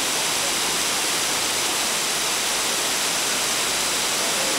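Waterfall rushing: a steady, loud hiss of falling water that does not let up.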